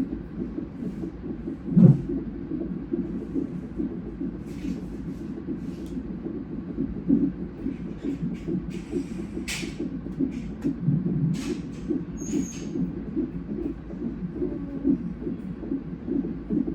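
Fetal heart monitor's Doppler ultrasound playing a baby's heartbeat as a fast, steady, rhythmic pulsing during a non-stress test, with one louder thump about two seconds in.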